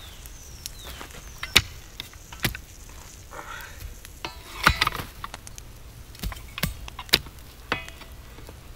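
Small wood fire crackling, with sharp pops at irregular moments, about seven in all.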